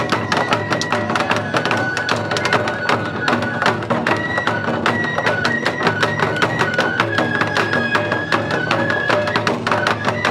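Live shishi-furi lion-dance music: rapid, steady drum strikes with a high flute melody held in long stepping notes over them.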